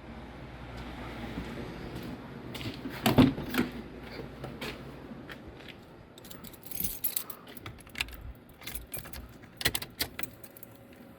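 Keys jangling among scattered small clicks and knocks, with one louder thump about three seconds in.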